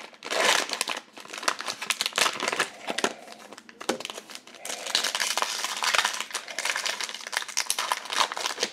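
Cellophane wrapper of an NBA Hoops Premium cello pack of trading cards crinkling as it is ripped open, a dense crackle that grows louder about halfway through.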